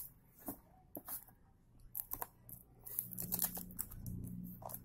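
A small cardboard retail box being handled and opened by hand: scattered light rustles, scrapes and taps of the cardboard. A faint low hum sits underneath from about three seconds in.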